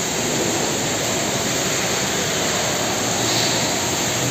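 Steady, even rushing noise of air conditioning.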